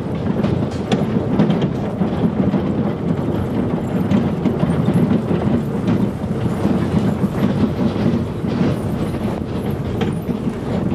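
A wheeled dog-team cart rolling fast over a gravel road: a steady rattling rumble of wheels on gravel, with scattered clicks and knocks.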